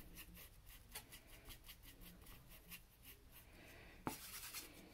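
Faint, quick strokes of a fine paintbrush on canvas, about four or five a second. About four seconds in, the brush ticks against a plastic palette plate and scrapes there briefly while picking up more paint.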